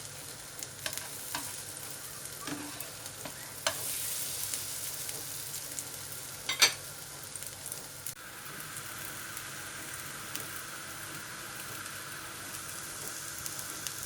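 Kitchen cooking sounds: a steady sizzling hiss with scattered clicks and knocks of a utensil, one knock midway louder than the rest. About two-thirds of the way through, the sound changes abruptly to a smoother, steadier hiss.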